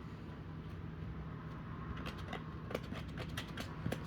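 Light clicks and taps of plastic fan parts being handled, sparse at first and then several a second in the second half, over a steady low hum.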